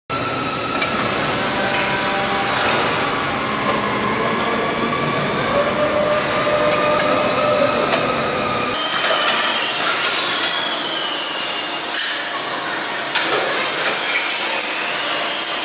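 Factory machinery noise from a robotic welding cell: a steady hissing din with whining tones that drift slowly in pitch and a few light knocks. The deeper rumble drops away about nine seconds in.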